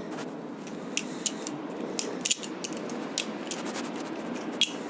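Balisong (butterfly knife) being flipped through a horizontal aerial trick: a string of sharp metallic clicks and clinks as the handles and blade swing and knock together, with a cluster a little past halfway and a strong click near the end.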